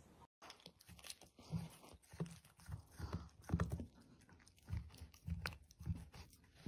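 A puppy gnawing on a chew: irregular crunches and bites, roughly two a second.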